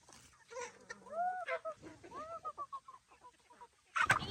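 A chicken calling with a few drawn-out squawks that rise and fall in pitch, then a loud burst of clattering and scuffling near the end.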